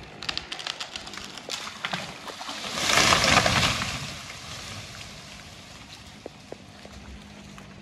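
A large dead pine tree falling: a run of sharp cracks and snaps of breaking wood in the first two seconds, then a loud rushing crash about three seconds in as the trunk and branches hit the ground.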